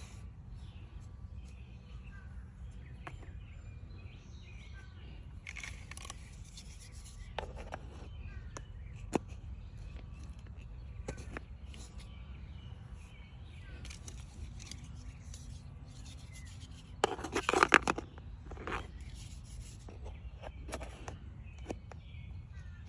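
Scattered clicks and scrapes of things being handled, with a louder rustling clatter about 17 seconds in, over a steady low outdoor rumble.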